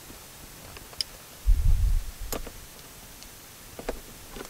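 Scattered sharp clicks and taps of a screwdriver and a small metal bracket against a plastic car door trim panel, about four in all, with a dull low thump about one and a half seconds in that is the loudest sound.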